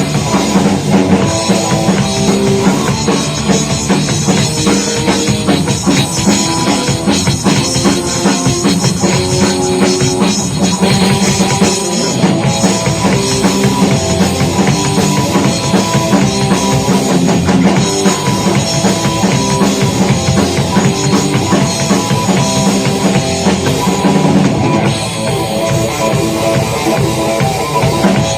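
Punk rock band playing loud live during a sound check: drum kit, electric guitar and bass.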